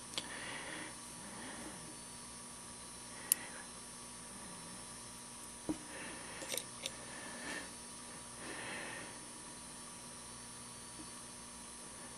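Quiet close-up work sounds: soft breathing near the microphone, and a few sharp little clicks of fine tweezers handling a tiny grab iron on a plastic model car, the loudest click about three seconds in.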